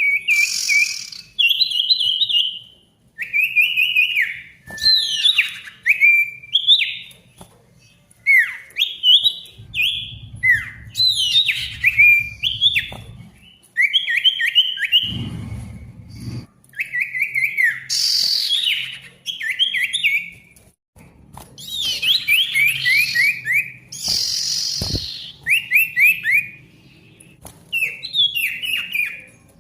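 Sirtu songbird, a male, singing loudly and without pause. Its song is fast runs of clipped, sliding whistled notes in short phrases, broken by harsh raspy calls.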